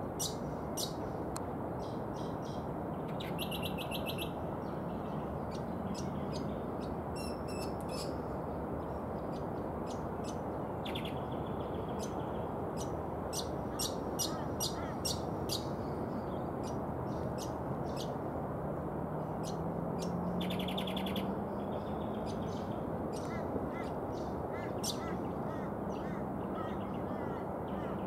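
Brown honeyeater singing: a long, uneven run of quick, sharp notes, broken twice by a short rapid trill, over a steady low background rush.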